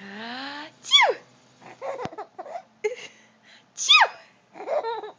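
A woman sneezing twice, loud and sharp, about a second in and about four seconds in, the first with a rising 'ah' drawn in before it. A baby giggles in short bits between the sneezes.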